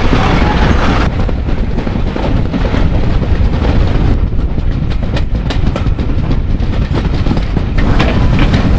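Railway carriage running along the line, heard from an open window: a steady low rumble of wheels on track, with a louder rush that drops about a second in, and sharp wheel clicks over rail joints from about halfway.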